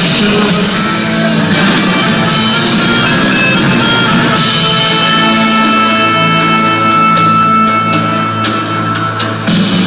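Live rock band playing loud, mainly instrumental music on electric guitars and drum kit, recorded on a phone from within the audience. The music changes abruptly about four seconds in as one song gives way to another, and a long note is then held for several seconds.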